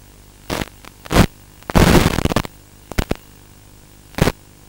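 Radio static on an analog FPV video link's audio: a steady hiss broken by five sudden loud crackling bursts, the longest lasting most of a second near the middle, the sign of the video signal breaking up.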